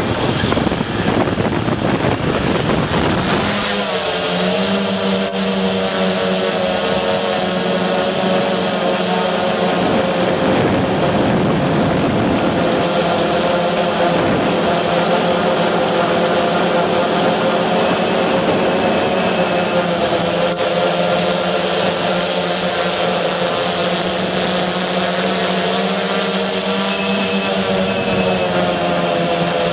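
Remote-controlled helicopter's motors and rotors, heard close up from the craft itself. The sound is rough and noisy at first, then about three and a half seconds in it settles into a steady whine over a low buzz that wavers slightly in pitch as the craft climbs and hovers.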